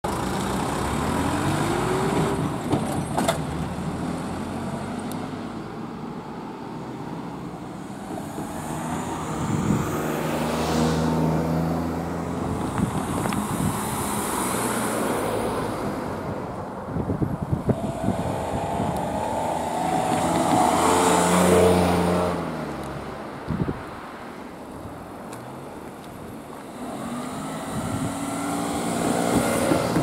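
Road vehicles, a light truck and cars, driving over a railway level crossing one after another, each engine swelling and fading as it passes, one rising in pitch as it pulls away near the start. A few sharp knocks, likely tyres striking the rails.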